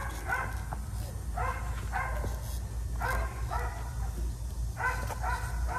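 Geese honking in four short runs of quick calls, about a second and a half apart.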